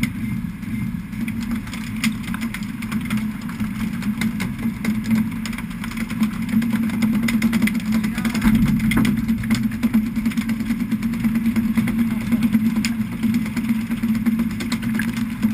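Fishing boat's engine running steadily, a low even hum, with scattered sharp knocks throughout.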